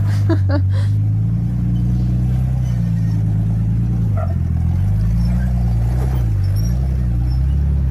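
A vehicle engine running hard under load with a deep, steady drone. Its pitch dips and recovers briefly about four seconds in and twice more near six seconds, as if it is straining to climb.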